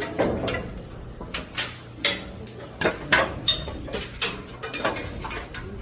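Irregular metal clinks and clicks of hand tools and metal parts being handled during repair work in a ship's engine room, over a steady low hum.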